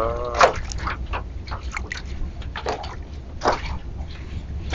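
Small waves slapping and sloshing against the hull of a small boat in irregular splashes, over a steady low rumble.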